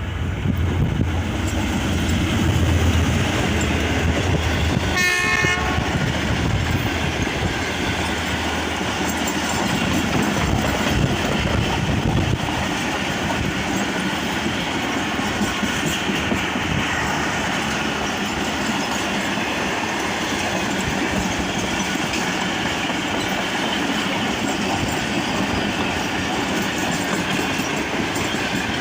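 Pakistan Railways' Awam Express passing through a station: a low diesel locomotive engine drone, one short horn blast about five seconds in, then the steady clatter of the passenger coaches' wheels rolling by on the rails.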